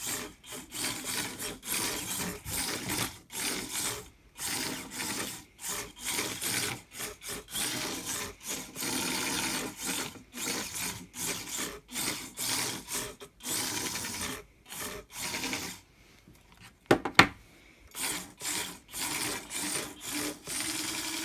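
Six-wheel-drive antweight combat robot's small drive motors whirring in short stop-start bursts as it drives about on a wooden tabletop, its wheels rubbing on the wood. One sharper, louder knock about three-quarters of the way through.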